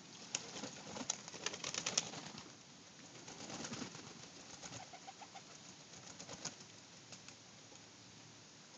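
Pigeons cooing, with a quick flurry of wing flaps and splashes from birds bathing in a shallow water tub over the first two seconds and a few more flaps about six seconds in.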